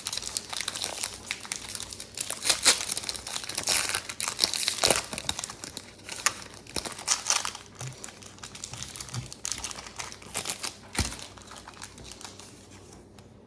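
Pokémon card booster pack wrappers crinkling and being torn open, a dense run of sharp crackles that thins out toward the end.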